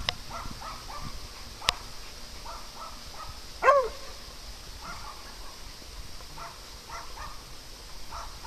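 A dog gives a single loud bark about halfway through, among fainter short sounds from the playing dogs. Two sharp clicks come early, over a steady hiss.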